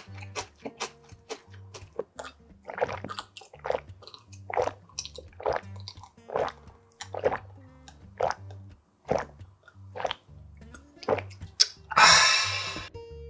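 Gulping water from a glass, a swallow about once a second, then a loud breathy exhale near the end, over background music with a steady bass line.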